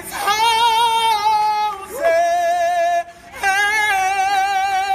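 A woman singing a worship song in three long held notes with vibrato, with short breaks between them about two and three seconds in.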